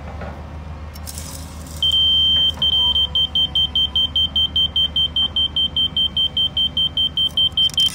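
Laser receiver on a levelling staff beeping as it picks up the rotating laser's beam: about two seconds in, a high steady tone, then an even run of fast beeps, about four or five a second. The beeping tells the user where the beam sits against the receiver's zero mark.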